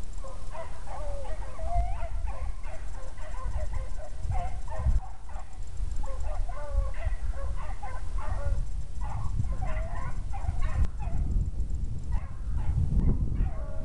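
A pack of young hounds baying on a rabbit's trail: many overlapping voices calling without a break, over a low rumble.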